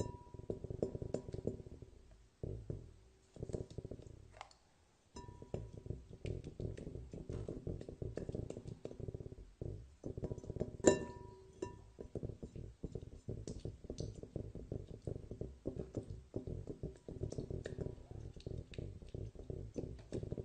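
Slime being squeezed and worked by hand: dense crackling pops, with one sharp ringing clink about eleven seconds in.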